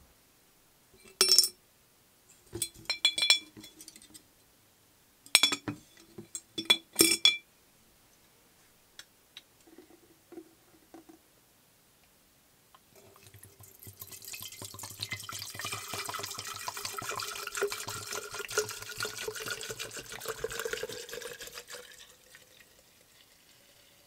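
A few sharp clacks in the first seven seconds, then wood hardener poured from a can into a glass jar over wooden razor handle scales. The pour runs for about nine seconds, its pitch rising slowly as the jar fills.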